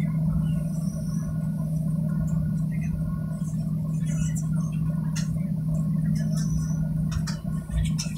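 Steady drone of a jet airliner's engines and airflow heard inside the passenger cabin, with a strong, even low hum.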